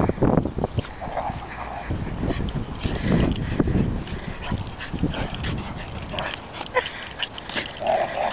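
Dogs play-wrestling: irregular scuffling and short knocks, with brief whining dog noises now and then.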